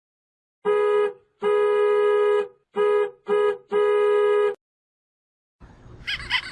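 Comedy sound effect: a steady honking tone held at one pitch, sounded five times in a short, long, short, short, long rhythm. Near the end a different effect begins, with a wavering, warbling pitch.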